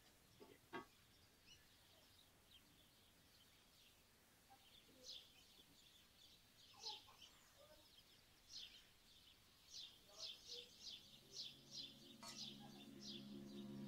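Faint bird chirps: short, high calls repeated at irregular intervals, coming more often toward the end, over a near-silent background. Soft, sustained background music fades in near the end.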